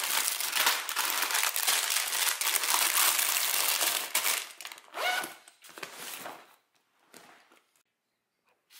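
Plastic snack wrappers (instant noodle packets and protein bars) crinkling as they are pushed into a backpack pocket. The crinkling is dense and continuous for about four seconds, then thins to a few scattered rustles.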